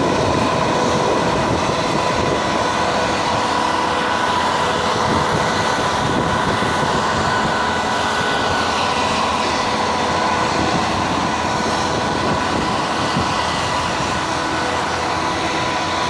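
Steady drone of heavy ship or shipyard machinery, with a high, steady whine running over it.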